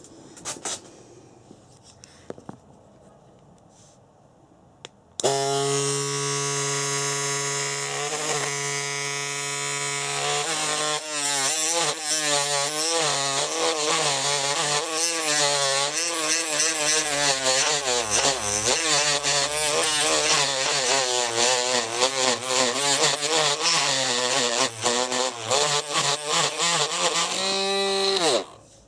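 Small handheld power tool with a sanding bit starting abruptly and running at a steady high pitch, then sanding out the inside of an RC car's gearbox motor housing, its pitch wavering under load with rapid scraping ticks. It switches off shortly before the end and winds down.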